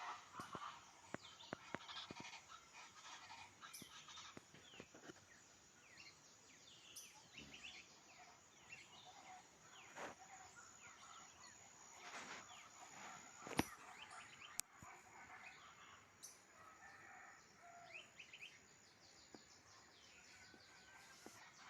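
Faint morning forest birdsong: many birds chirping and calling in short, scattered phrases over a steady high whine. One sharp click about halfway through is the loudest moment.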